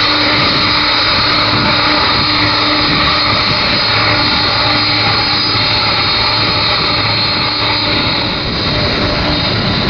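Boeing 747 Dreamlifter's four Pratt & Whitney PW4062 turbofan engines running at taxi power as the jet taxis close by: loud, steady jet noise with a high-pitched whine over it.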